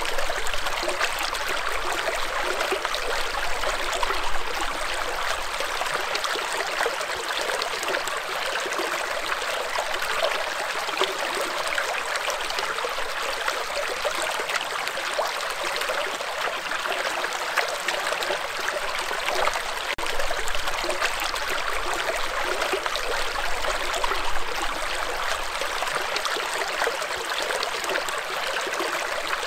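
Shallow stream running over and between rocks, a steady, even rush of rippling water.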